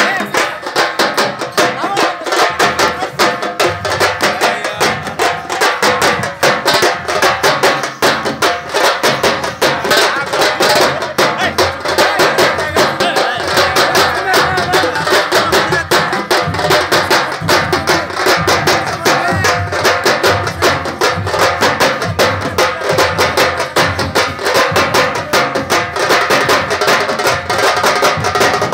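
A band of large shoulder-slung cylindrical drums beaten with sticks, playing a fast, dense, unbroken rhythm together.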